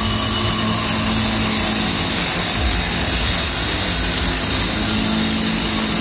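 Handheld angle grinder cutting through a tile, its blade running steadily in the cut with a loud, high grinding hiss over a low motor hum.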